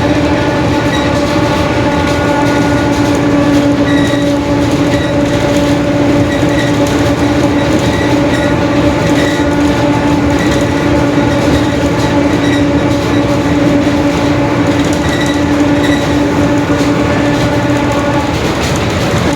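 Mercedes-Benz OF-1721 BlueTec 5 city bus running at a steady speed, its differential howling with a steady whine at one pitch over the engine and road rumble.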